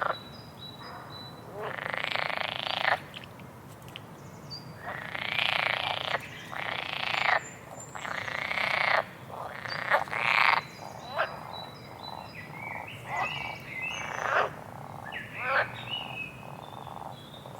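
Frogs croaking: a run of calls, each about a second long, coming every second or two, with short high chirps between them over a faint steady rush of water.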